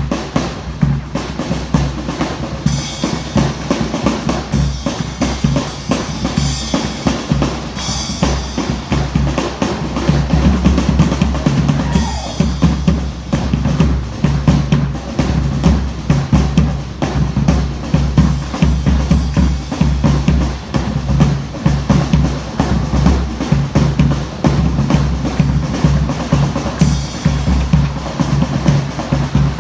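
Drumming with bass drum and snare keeping a steady, continuous rhythm.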